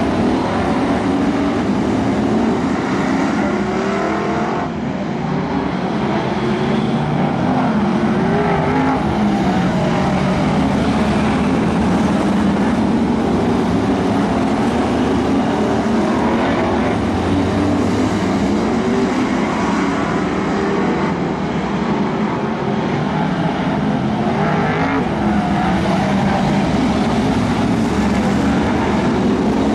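Several BriSCA F1 stock cars' V8 engines racing round a short oval. A continuous loud din whose pitch keeps rising and falling as the cars rev up and ease off through the laps.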